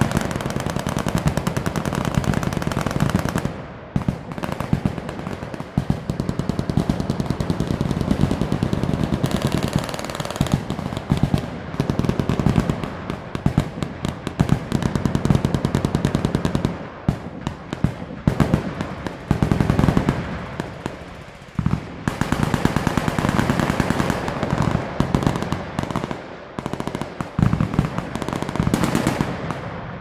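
Many machine guns firing full-auto at once along a firing line: a dense, overlapping stream of bursts with only a few brief lulls.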